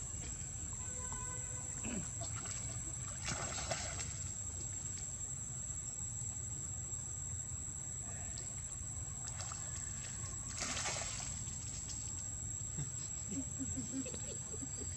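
Macaques swimming and playing in a pond: water sloshing, with two louder splashes about three and a half and eleven seconds in.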